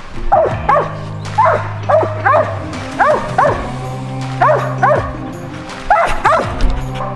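Dog barking at the foot of a tree, short sharp barks often in quick pairs, roughly two a second: a squirrel dog treeing. Background music with held low notes plays underneath.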